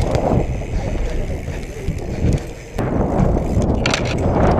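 BMX bike riding across a skatepark's coated surface and up a concrete ramp: steady tyre rumble with wind on the microphone, and a few sharp clicks near the end.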